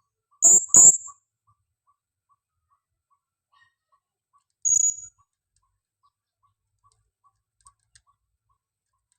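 Female blue-crowned hanging parrot (serindit) calling: two short, shrill, high-pitched notes in quick succession about half a second in, and one more near the middle. These are the lively calls used as a decoy to lure other hanging parrots.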